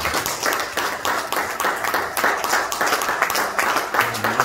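Congregation applauding: many people clapping in a dense, irregular patter.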